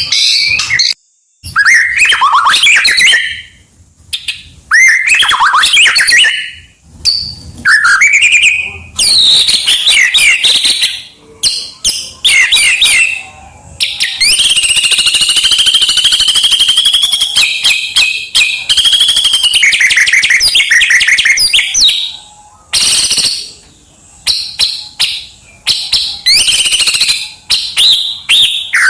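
White-rumped shama (murai batu) singing loudly in a varied, mimicry-rich song of sweeping whistles and fast chattering phrases separated by short pauses. About halfway through it delivers one long unbroken rapid run lasting several seconds.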